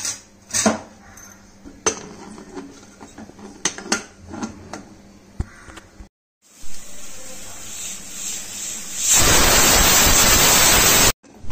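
Metal spoon clinking and scraping against an aluminium pressure cooker as the curry is stirred. Near the end the pressure cooker's weighted whistle valve blows off steam in a loud hiss for about two seconds, a sign that it is up to pressure.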